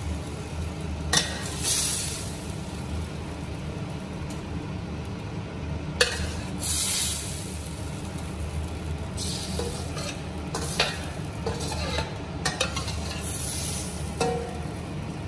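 Metal spatula scraping and knocking against a stainless steel wok as stir-fried cabbage is scooped out onto a plate, with a handful of sharp scrapes and clinks over a steady low hum and the sizzle of the hot pan.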